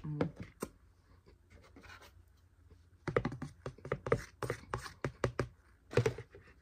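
Cornstarch being chewed: rapid, crisp crunching and squeaking of the packed powder in the mouth. A few crunches, a short lull, then a dense run of crunches and one more burst near the end.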